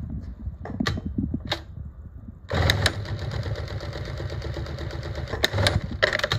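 Consew direct-drive walking-foot industrial sewing machine starting about two and a half seconds in and stitching steadily through a thick stack of heavy webbing for nearly four seconds, then stopping. A few light clicks come before it starts.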